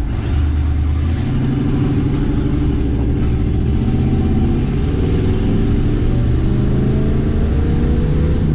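1977 Chevy C20 crew cab's engine pulling away and accelerating, its note rising steadily over several seconds.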